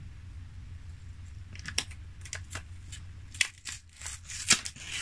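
Thin protective plastic film being peeled and handled on a new smartphone, crinkling and crackling in short sharp snaps that begin about a second and a half in and grow louder toward the end. A low steady hum runs underneath.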